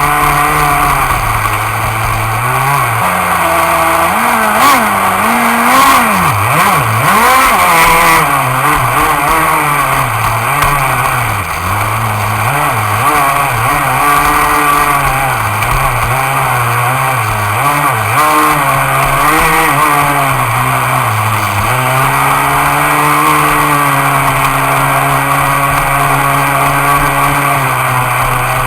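Cen Gray Thunder RC boat's engine running loud. It holds an even pitch at first, rises and falls again and again through the middle as the throttle is worked, then settles back to a steady pitch for the last several seconds.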